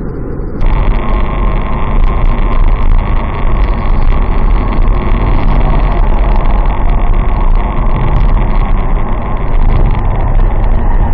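Steady road and wind noise of a car driving at highway speed, picked up by a dash cam: a loud, even rush with a deep rumble, which jumps louder less than a second in.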